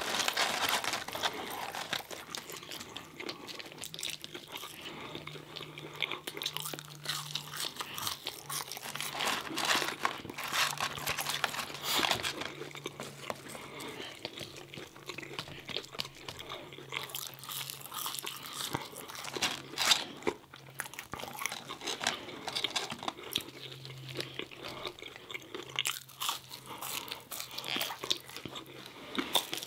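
Close-miked chewing and crunching of McDonald's french fries and chicken nuggets, with irregular crunches and wet mouth clicks and one sharper bite about two-thirds through.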